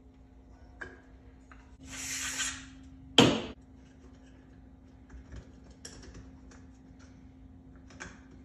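Small metal engine parts handled on a workbench: scattered light clicks and taps, a short hiss about two seconds in, and one sharp metallic clank just after three seconds, the loudest sound.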